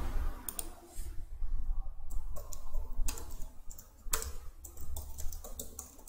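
Computer keyboard typing: keys clicking in short, irregular runs over a steady low hum.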